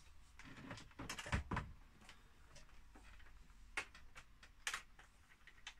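Plastic casing of a portable radio cassette player being handled and tipped up on a bench: a cluster of knocks about a second in, then a few single sharp clicks.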